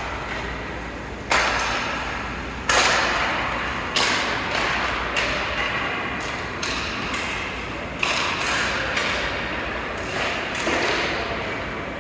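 Ice hockey play in a rink: about a dozen sharp, irregular knocks and cracks of sticks and puck striking the ice and boards, each ringing on with the arena's echo.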